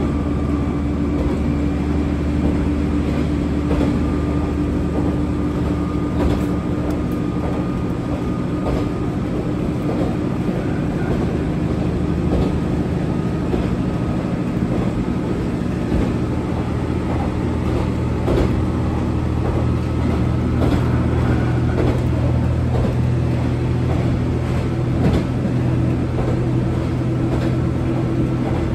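Kanto Railway Joso Line diesel railcar running along the line: a steady engine drone with short knocks of the wheels over the track. The engine note shifts about twenty seconds in.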